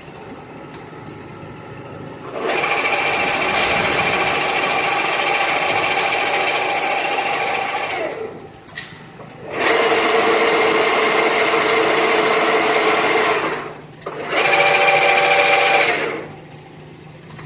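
Overhauled 1K62 screw-cutting lathe running under power, its headstock gears giving a steady whine with several fixed tones. The spindle is started and stopped three times, running about five seconds, then four, then a second and a half, and the tone pattern differs between runs.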